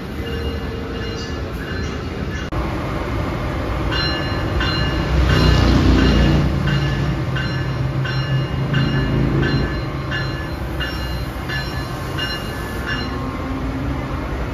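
Amtrak Siemens ACS-64 electric locomotive and its coaches rolling slowly past along the platform. From about four seconds in, the locomotive's bell rings about twice a second. Under it runs a low hum and wheel noise that are loudest as the locomotive passes, about six seconds in.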